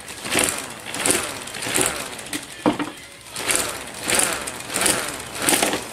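The plastic rotor of a K'nex model air raid siren, fitted with fan blades, being spun by hand, whirring in surges about every three quarters of a second as it is pushed round, with one sharp click a little before three seconds in.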